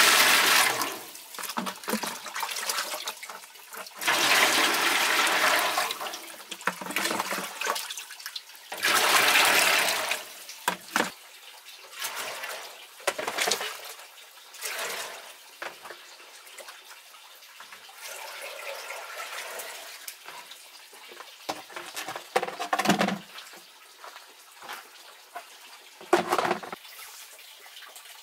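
Water poured from a plastic jug into a large pot, in three loud splashing pours over the first ten seconds or so. After that come quieter handling sounds and a few short knocks.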